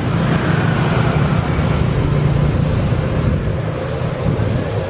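Steady loud aircraft turbine noise, a low rumble under a broad hiss, with a faint high whine that fades in the first two seconds.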